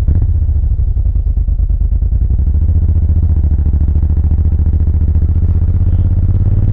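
Suzuki VL1500 Intruder LC's V-twin engine and exhaust running at a steady cruise on the moving bike, a low, fast, even pulsing beat.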